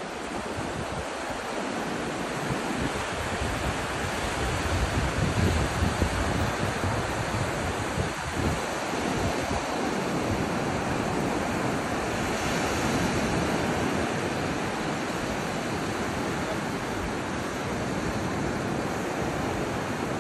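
Small sea waves breaking and washing up a sandy beach in a steady surf wash. Wind buffets the microphone with a low rumble in the first half.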